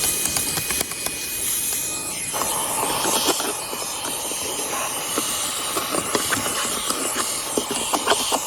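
Fanttik Slim V8 APEX cordless handheld car vacuum running at max speed through its hose attachment: a steady rushing hiss of air, with many small clicks and ticks of debris being sucked up. The tone of the airflow fills out about two seconds in.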